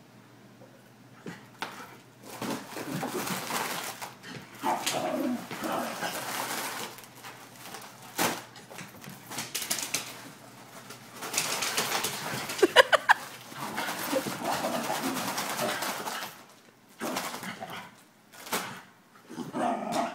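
Foil Valentine's balloon crinkling and rustling in repeated bursts, with a brief rising squeak about thirteen seconds in.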